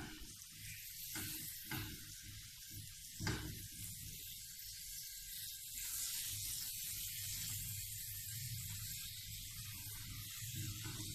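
Tomato slices sizzling in a metal grill tray on a gas stove: a steady soft hiss, with a couple of light scrapes from a metal spatula in the first few seconds.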